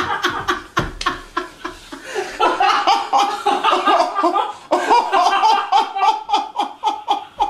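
A man laughing in fits: short bursts, scattered at first, then a run of quick repeated bursts of about five a second from about two seconds in.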